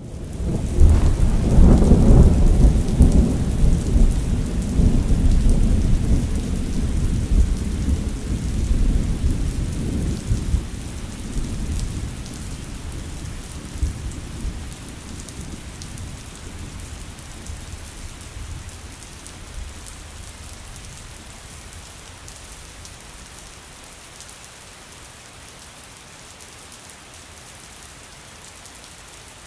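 A long clap of thunder that swells about a second in, is loudest for the next few seconds, then rolls away and dies down over about fifteen seconds. Steady rain keeps falling underneath and is left on its own near the end.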